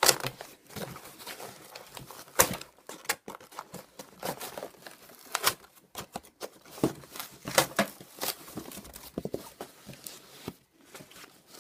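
Cardboard box and its packaging being handled, crinkling and rustling with many sharp, irregular crackles.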